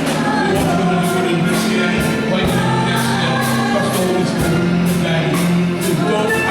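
Gospel music: voices singing together over a band, with a steady beat of about two strokes a second.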